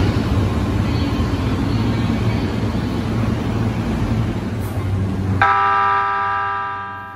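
Electric commuter train running past along the platform with a steady rumble. The sound cuts off abruptly, and a JR East E131 series EMU sounds its horn: one held blast of about a second and a half that fades out.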